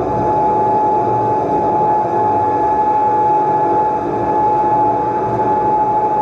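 Droning performance soundscape: a dense, low, uneven noise with a single steady high tone held over it.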